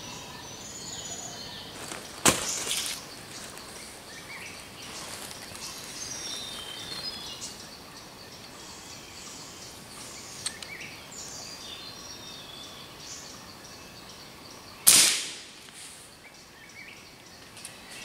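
An air rifle is fired once about three-quarters of the way through: a sudden loud crack with a short hissing tail. A shorter, sharper crack comes about two seconds in, and small birds chirp high and intermittently in between.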